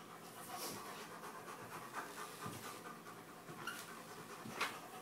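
German Shepherd panting steadily, with a single sharp tap near the end.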